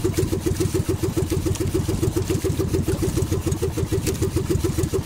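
Small engine of an outrigger fishing boat running steadily at low speed, with a rapid, even chug.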